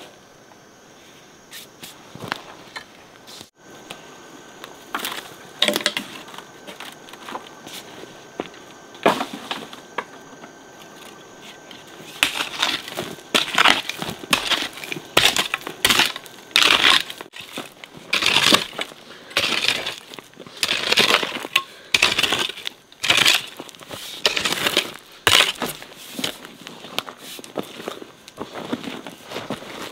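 Repeated crunching of dry material: a few scattered crunches at first, then from about twelve seconds in a dense, irregular run of about one or two crunches a second.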